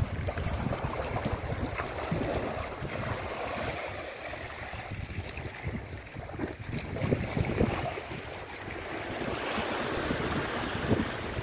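Small sea waves washing and lapping against shoreline rocks, with wind buffeting the microphone in uneven low gusts.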